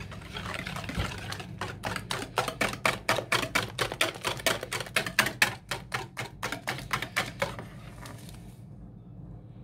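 Metal balloon whisk beating eggs in a ceramic bowl: a fast run of clicks as the wires strike the bowl, about five strokes a second. It stops about seven and a half seconds in.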